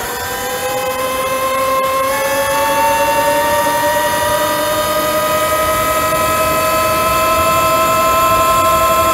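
E-Ride Pro SS 2.0 electric dirt bike's motor whining and rising in pitch as the bike speeds up, the climb easing off over the last few seconds. Wind rushes over the microphone.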